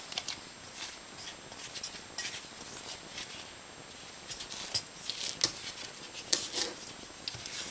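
Plastic bowl scraper scraping risen bread dough out of a stainless steel bowl: light, irregular scratches and scrapes against the metal, with a few sharper ones from about five seconds in.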